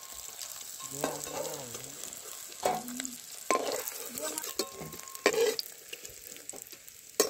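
Fried foli fish pieces sizzling in hot mustard oil in a metal kadai while a metal spatula scrapes and lifts them out. There are several sharp clanks of the spatula against the pan, the loudest near the end.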